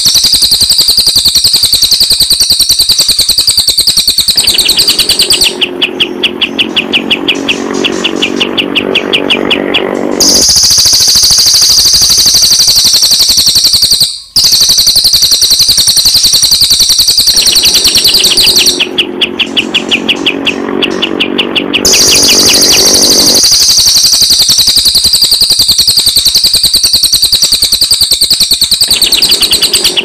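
Recorded calls of cililin and kapas tembak songbirds played as a bird-training track: a high, fast continuous trill alternates with a lower, rapidly pulsing rattling call, the same sequence coming round again about every 13 seconds. There is a brief break about 14 seconds in.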